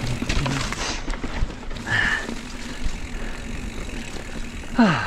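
Specialized Levo SL e-mountain bike riding over a rough, muddy trail: irregular rattling and knocking from the tyres and bike, and from about two seconds in a steady hum from the electric assist motor. Near the end comes a short grunt that falls in pitch.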